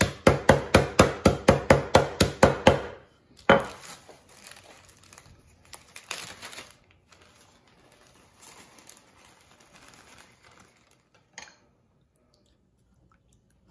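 Wooden rolling pin pounding peanuts in a plastic bag on a countertop: a quick run of sharp strikes, about four a second, for the first three seconds, then one harder knock. After that the plastic bag crinkles and rustles as it is opened and emptied, dying away near the end.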